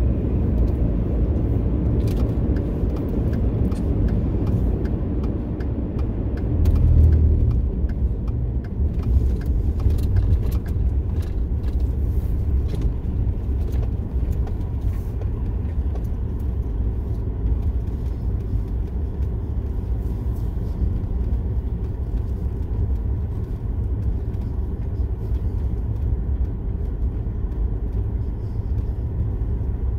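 A car's steady road and engine rumble heard from inside the cabin while driving on a winter highway, swelling briefly about seven seconds in, with scattered light clicks.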